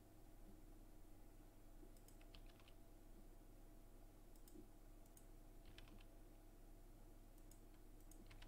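Near silence with a handful of faint, scattered clicks from a computer mouse and keyboard being used.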